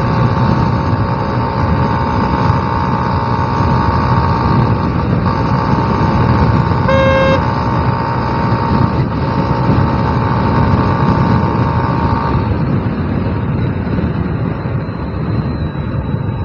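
Steady rushing wind and road noise from a motorcycle riding at speed, with a vehicle horn honking once, briefly, about seven seconds in.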